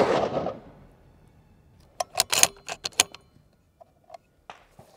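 The tail of a .338 Lapua Magnum rifle shot fades out, then about two seconds later comes a quick run of sharp metallic clicks as the Ruger Precision Rifle's bolt is worked to eject the spent case and chamber the next round, with a few lighter clicks near the end.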